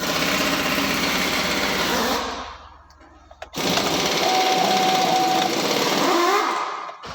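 2013 GMC Yukon's V8 engine being started: starter cranking and the engine catching quickly, in two loud bursts about a second apart, the second one longer. It starts at once, the sign that the hard-start fault from the damaged camshaft position sensor wire is cured.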